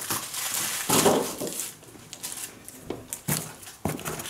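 Rustling and crinkling of fireworks packaging as it is handled in a cardboard box, with a few light knocks near the end.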